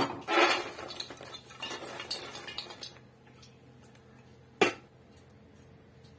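Popped popcorn tipped from a pressure cooker into a steel bowl: a metal knock, then a few seconds of rustling and clattering as it pours. A single sharp metal clank follows about four and a half seconds in.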